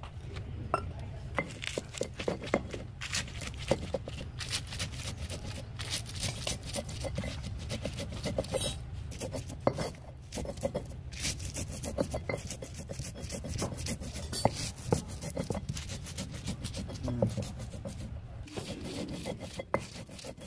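Stone rubbing on stone: a hand-held grinding stone worked back and forth over a flat sil-batta slab, crushing whole spices and dried chillies with a little water into a paste, in quick, irregular gritty scrapes and crunches.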